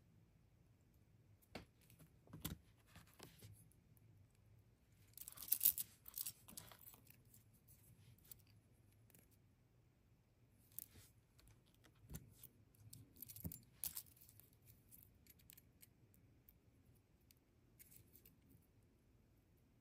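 Faint, scattered small clicks and metallic taps of jewellery pliers and jump rings being worked to attach a necklace clasp, with a brief flurry of clicks about five seconds in.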